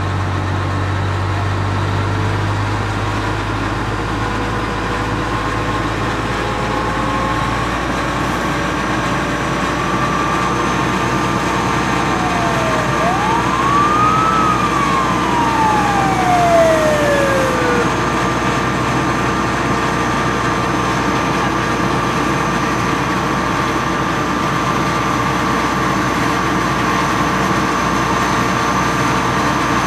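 Heavy engine running steadily, typical of fire apparatus at a working house fire. About thirteen seconds in, a siren wails once, rising and then falling over about five seconds.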